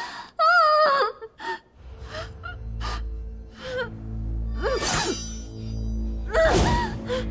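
A gagged woman's muffled, wavering cry, followed by a series of sharp gasping, sobbing breaths. A low, dark music drone comes in about two seconds in and holds under them.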